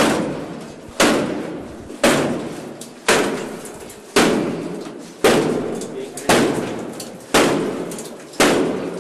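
A wooden apartment door being struck hard in a forced-entry attempt, about once a second, nine blows in all: each a sharp bang that rings and dies away before the next, with the door still holding.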